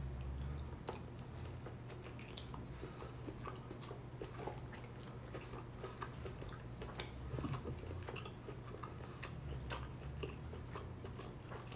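A person chewing a bite of smoked chuck steak: faint, irregular mouth clicks and chewing noises over a steady low hum. The meat is a little chewy.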